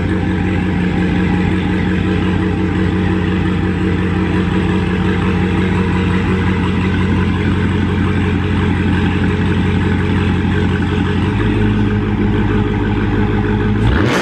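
V8 car engine and exhaust running at a steady cruise, a constant drone whose low tone shifts about eleven seconds in, then cut off abruptly.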